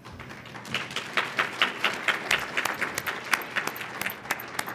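Audience applauding: many hands clapping, swelling about half a second in and thinning out near the end.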